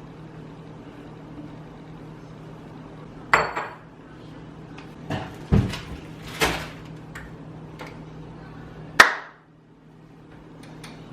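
A handful of knocks and clinks of hard objects over a steady low hum: one rings briefly like glass or china, and the loudest, sharp knock comes near the end.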